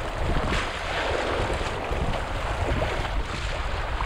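Rushing white water of small grade-one rapids around a kayak, with splashes from paddle strokes and waves. Wind buffets the bow-mounted microphone.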